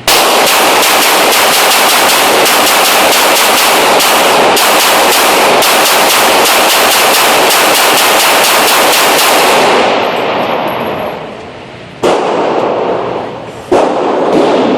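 Glock 17 9 mm pistol firing a long run of rapid shots lasting about ten seconds, then dying away, followed by three more single shots near the end.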